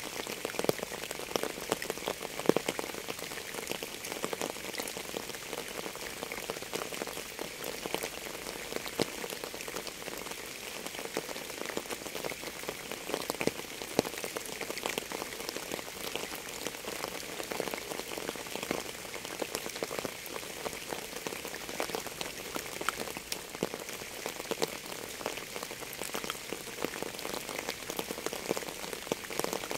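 Steady rain falling on a surface, with many separate drop hits and an occasional louder single drop.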